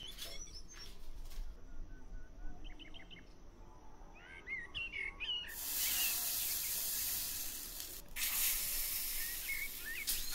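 Rice-flour batter sizzling as it is ladled into a hot oiled cast-iron chitoi pitha mould, a steady hiss starting about halfway through with a brief break a little later. Birds chirp now and then in the background.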